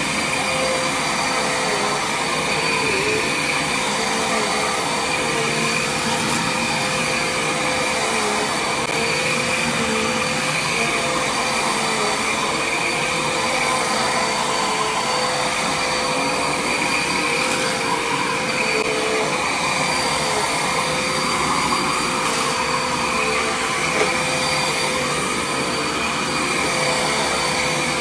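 Bagless upright vacuum cleaner running steadily as it is pushed back and forth over carpet: an even rushing hum with a constant whine.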